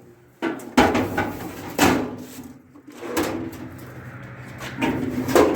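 Metal drawers of an old toolbox being slid in and out on their rails, with a few sharp knocks early on and then scraping with squeaky, bird-like tones. The rails are dry and stiff, in need of lubrication.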